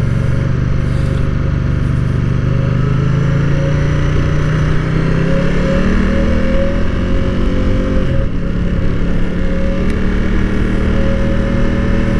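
Ducati Diavel's L-twin engine running through its stock muffler under way, the note climbing slowly, dipping once about eight seconds in, then climbing again. A steady humming drone sits over the exhaust, like a hum inside a cave; its cause is unknown.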